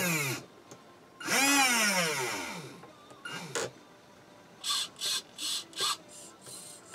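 Small electric motor on an RC test board, driven from the transmitter's throttle: it whines up in pitch and winds down twice, the second time longer, then gives four short whirring blips in quick succession.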